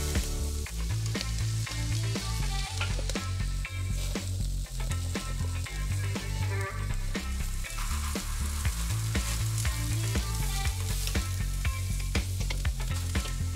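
Pork T-bone chops sizzling and crackling as they are seared on a hot charcoal grill, with background music and a steady stepping bass line underneath.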